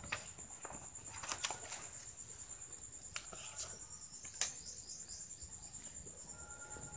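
An insect trilling steadily at a high pitch, with a few light clicks and paper rustles as a notebook page is turned over.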